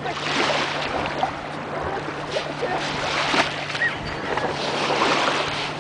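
Small waves washing up on a sandy lake shore, with wind on the microphone.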